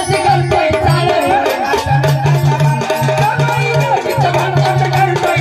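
Live Marathi gavlan folk music from a jagran gondhal ensemble: a wavering melody over repeated low held notes, with steady drum and rattle beats.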